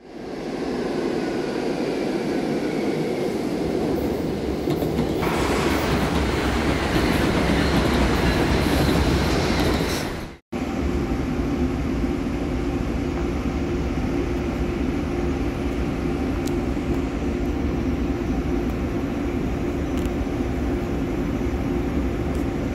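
PHX Sky Train automated people mover, its steady rumble and hum heard from inside the front car. The sound cuts out briefly about ten seconds in, and then a steady droning tone runs under the rumble.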